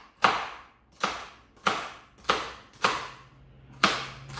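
Baccarat Damashiro kitchen knife slicing through celery sticks and hitting the cutting board: six crisp chops at a steady pace, about one every two-thirds of a second.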